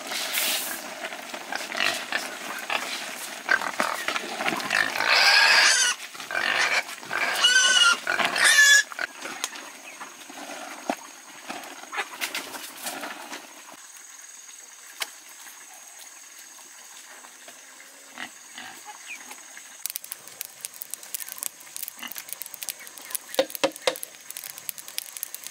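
Pigs squealing, a cluster of loud, high-pitched squeals between about four and nine seconds in, followed by quieter scattered knocks.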